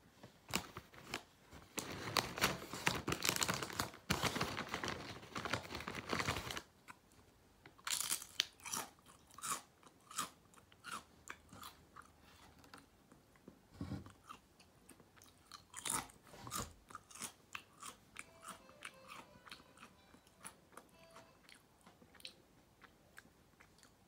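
Crunching and chewing of ketchup-flavoured chips close to the microphone. A dense run of crunching fills the first six seconds, then comes a series of separate crisp crunches. These thin out into quieter, rapid chewing over the last several seconds.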